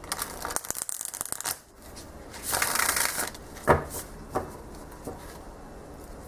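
A thick tarot deck (the Star Seeker Tarot) being shuffled: a rapid flutter of cards for about a second and a half, a second rush of cards a little later, then two knocks as the deck is tapped together.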